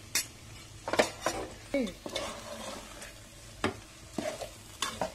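A steel ladle stirring taro pieces and spice powders in an aluminium pot, scraping and knocking against the pot several times, over a faint sizzle of frying oil.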